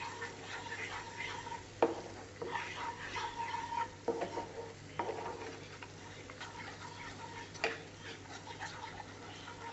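Wooden spatula stirring and scraping a thick tomato-onion masala paste as it fries and sizzles in oil in a nonstick pan, the spices being roasted into it. Four sharp knocks of the spatula on the pan stand out, about two, four, five and near eight seconds in.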